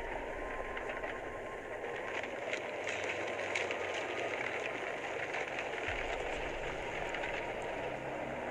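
Snow avalanche coming down the slope: a steady rushing rumble, with faint crackles about two to four seconds in.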